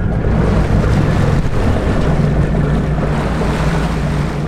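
Fishing boat's engine idling with a steady low hum, under wind on the microphone and water washing against the hull.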